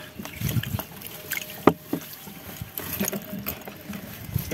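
Scattered knocks and bumps of gear and catch being handled in a canoe, with one sharper knock about a third of the way through.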